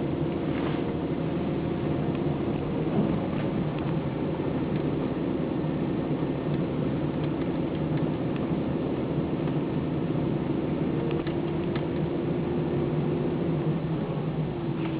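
Car driving along, heard from inside: a steady engine hum and road noise, with a few faint clicks.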